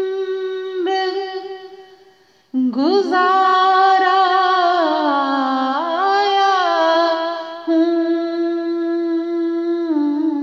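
A woman singing a naat: a long held note that fades away, then, after a brief break, a new long wavering phrase without clear words, with gliding pitch and vibrato.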